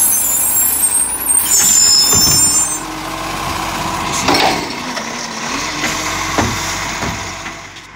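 Side-loader garbage truck: its air brakes hiss loudly for about the first three seconds as it stops, then its engine and hydraulic arm run as the arm lifts a wheelie bin, with a couple of knocks.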